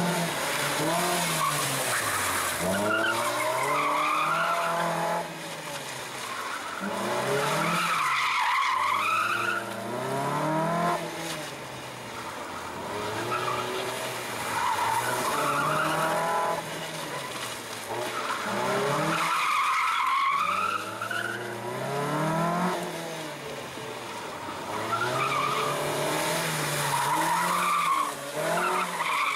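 Mazda MX-5's four-cylinder engine revving hard and dropping back over and over as the car accelerates and brakes through a tight cone course, with tyres squealing in the turns.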